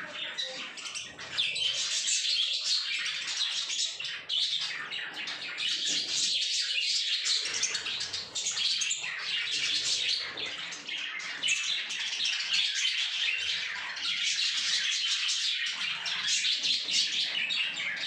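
A flock of budgerigars chattering and warbling continuously, many high chirps overlapping.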